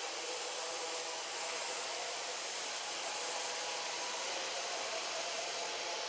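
Steady, even background hiss with a faint underlying hum of a few tones, unchanging throughout, with no monkey calls or distinct events.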